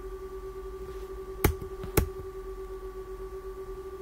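Two keystrokes on a computer keyboard, about half a second apart, over a steady background hum.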